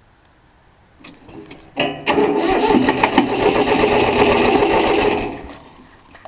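A few clicks, then an electric starter cranking a three-cylinder Yanmar diesel for about three seconds without it firing, before dying away. It won't start because its fuel lines were not bled.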